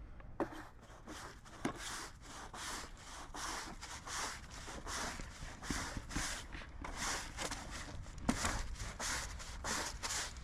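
Quick repeated brushing strokes over the freshly sawn face of a pecan log, about two or three a second, sweeping the sawdust off the cut.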